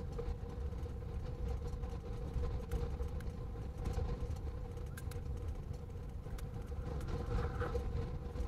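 Vehicle engine idling: a steady hum over a low rumble, with a few faint clicks.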